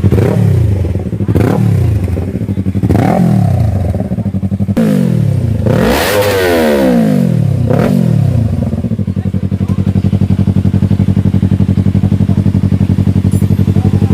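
Yamaha R3's parallel-twin engine through an Akrapovic slip-on muffler, revved in several quick throttle blips, the biggest about six seconds in, then settling to a steady idle for the last few seconds.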